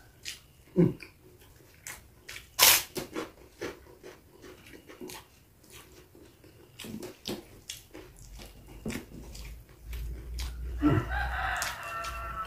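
Eating sounds, crunching, chewing and lip-smacking, from a meal of raw vegetables and fried salted fish eaten by hand, with a sharp crunch about three seconds in. Near the end a rooster crows.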